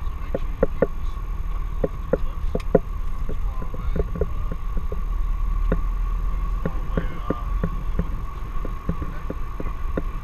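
Small propeller airplane's engine and propeller droning inside the cabin: a loud, steady low rumble with a constant thin whine, and irregular short rattling clicks several times a second.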